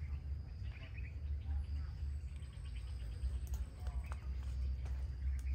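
Outdoor ambience: a steady high insect drone with scattered short bird or insect chirps, over a low rumble, with a couple of sharp clicks near the end.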